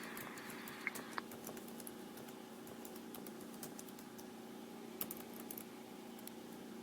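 Faint steady electrical hum with a few scattered light clicks, a pair about a second in and another cluster around five seconds, like keys being tapped.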